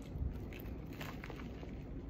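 A few faint crackly clicks as a turkey burger on toasted bread is handled and bitten into, over a low steady hum.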